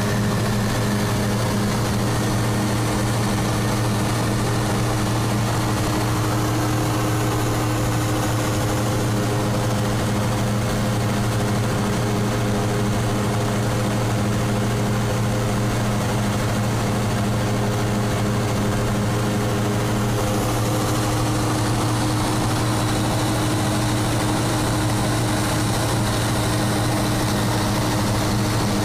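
Cessna 172's piston engine and propeller running steadily in level cruise, heard inside the cabin.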